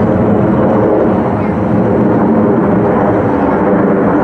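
Loud, steady jet engine noise from USAF Thunderbirds F-16 Fighting Falcons flying the air show.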